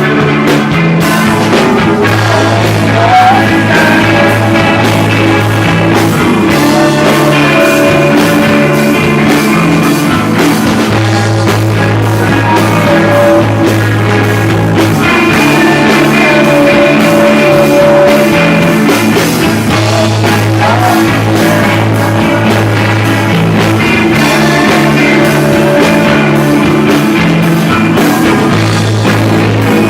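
Rock band playing live: guitar, bass guitar and drums, with a voice singing over them at times.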